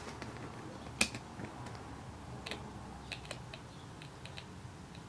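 Faint, irregular clicks from a Snap Circuits speaker as the motor shaft is turned by hand, the kit's imitation of an old typewriter typing.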